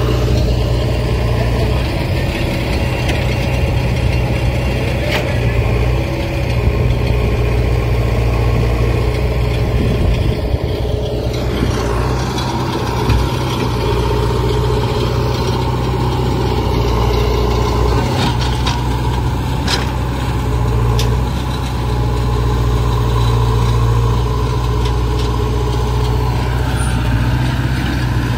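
Heavy diesel engine of a working vehicle running steadily, with a few sharp clicks or knocks in the second half.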